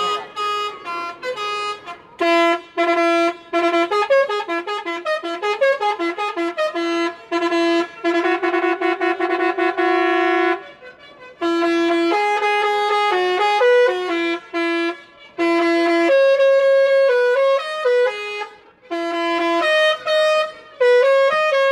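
Bus telolet horn, a multi-trumpet air horn, playing a tune: quick runs of short stepped notes, one long held chord near the middle, then more short phrases with brief breaks between them.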